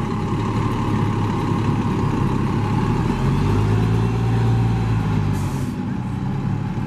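Diesel engine of a 2000 Orion V (05.503) 35-foot transit bus running as the bus pulls away. The engine note swells to its loudest about four seconds in, then fades as it drives off. A short hiss of air comes about five seconds in.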